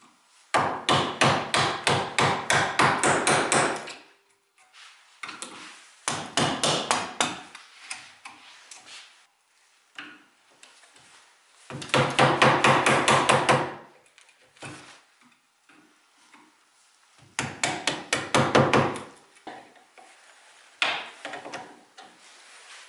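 Wood chisel struck with quick, light blows in five separate runs, several strikes a second, chopping out an old mortise in a wooden chair leg.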